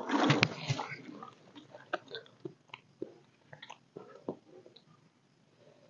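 Eating sounds: a spoon scraping and tapping a plastic plate, with chewing. A brief, louder clatter and rustle in the first second, then scattered small clicks that thin out.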